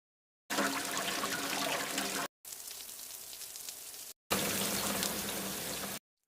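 Three spliced sound-effect clips of steady rushing noise, each starting and stopping abruptly, the middle one quieter than the other two.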